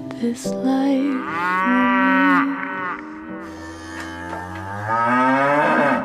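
A cow mooing twice, a long call about a second in and a rising one near the end, over held music notes.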